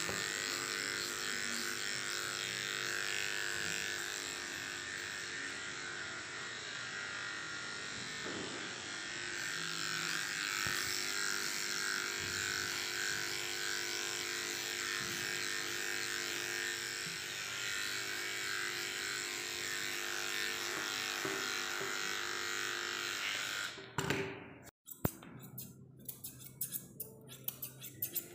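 Electric pet grooming clipper running with a steady buzz as it is worked through a dog's long coat. About 24 seconds in the buzz stops, and grooming scissors snip quickly several times near the end.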